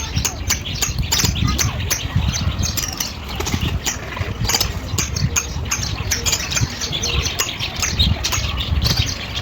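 Many caged birds chirping and squawking in rapid, overlapping short calls, over a steady low rumble.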